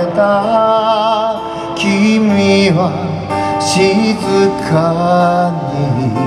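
A man singing a slow ballad to his own acoustic guitar, holding long notes with vibrato.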